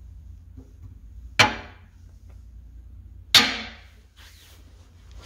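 Two sharp wooden clacks about two seconds apart, each ringing briefly: a magnet-mounted wooden grille frame snapping onto the front of a wooden subwoofer cabinet.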